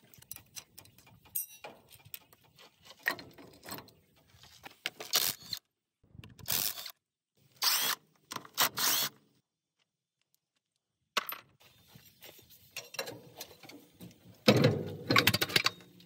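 Metal clinks and knocks from axle parts being handled, broken up by several short bursts of a cordless impact wrench working on the axle housing. There is a louder, heavier knock near the end.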